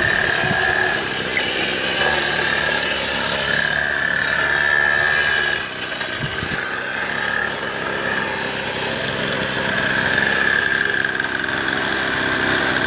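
Go-kart's small engine running as the kart drives around, swelling and fading, with a brief dip about six seconds in.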